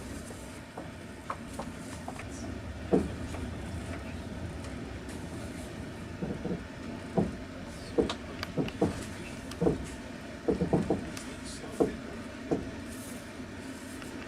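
Passenger train's wheels rumbling steadily on the rails, heard inside the carriage, with irregular clacks and knocks from the wheels over the track, most of them in the second half.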